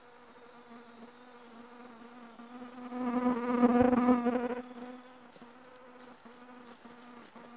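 A flying insect buzzing with a steady hum that comes close to the microphone about three seconds in, growing loud for a second or so with a wavering pitch before fading back to a faint drone.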